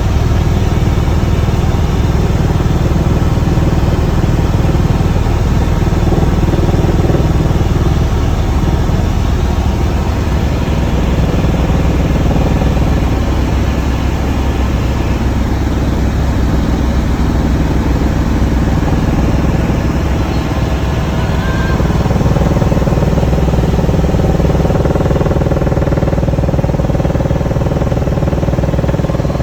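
Helicopter in flight, its engine and rotor giving a loud, steady drone with a low hum.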